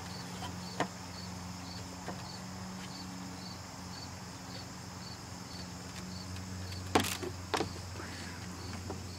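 A child clambering along playset monkey bars, heard as a few sharp knocks and, about seven seconds in, two louder thumps close together. Behind them are a steady low hum and a regular high chirp repeating about twice a second.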